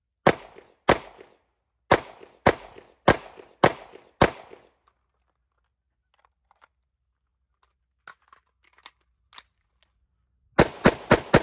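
A pistol is fired seven times at a steady pace, about two shots a second, then stops. A few faint clicks follow as the shooter switches weapons. Near the end, an AR-style rifle opens up with shots in very quick succession, several a second.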